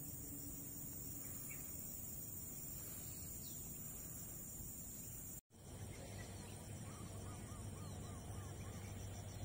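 Outdoor hillside ambience with a steady high hiss that drops out for an instant about halfway through. A bird then calls a quick run of about six short, evenly spaced notes.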